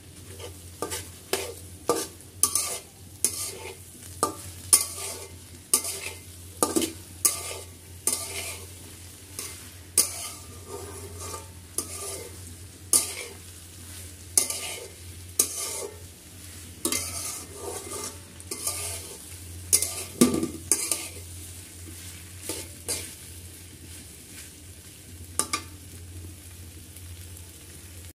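A metal spatula scraping and knocking around a metal pan as okra and egg are stir-fried, with oil sizzling underneath. The strokes come irregularly, about one or two a second, and grow sparse in the last several seconds.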